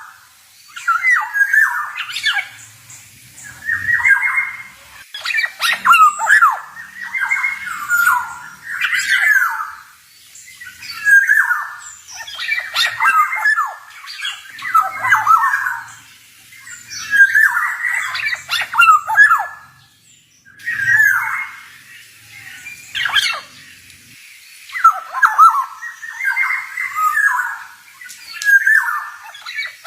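Male black-naped oriole (kepodang) singing: a run of phrases made of quick, varied gliding notes, coming every couple of seconds with short pauses between them.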